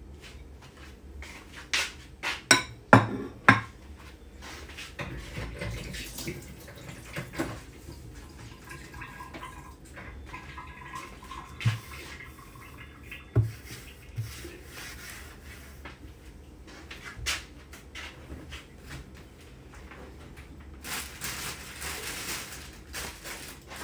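Kitchen counter work: knocks and clinks of bowls, plates and utensils, loudest in a quick cluster a couple of seconds in, with scattered knocks after that and a stretch of hissing noise near the end.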